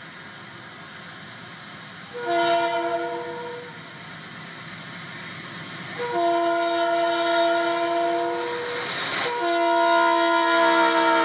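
A diesel freight locomotive's air horn sounds three blasts, several notes at once: a short one about two seconds in, then two long ones. Under the horn is the rumble of the passing train, growing louder as it nears.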